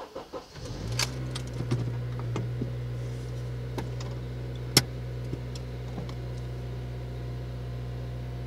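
A Honda Civic Si's K20 four-cylinder engine starts: it cranks briefly, catches about a second in and settles into a steady fast idle of around 2,000 rpm. A single sharp click comes about halfway through.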